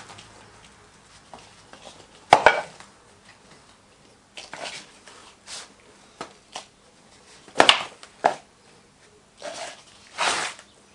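Green foundry sand being scooped from a pile with a hand scoop and tipped into a metal moulding flask: a series of short scrapes and rustling pours, with two sharper knocks, about two seconds in and again about seven and a half seconds in.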